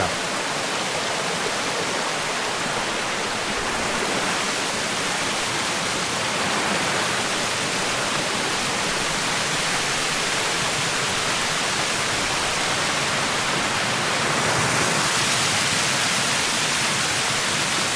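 Waterfall cascading: a steady, even rush of falling water, a little louder near the end.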